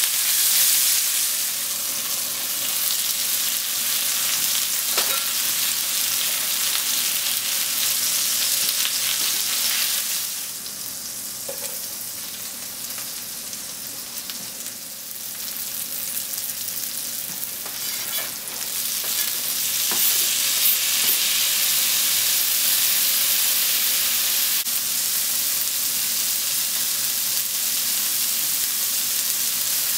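Food sizzling in hot oil in a cast-iron skillet: chicken thighs searing while turned with tongs, then sliced onions and green beans frying in the drippings as they are stirred. The sizzle drops quieter for several seconds around the middle, then picks up again, with a few light clicks along the way.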